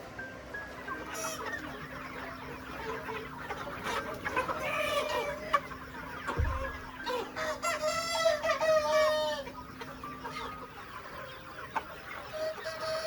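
Chickens clucking, with a rooster crowing once in a long call about two-thirds of the way through. A brief low thump comes near the middle.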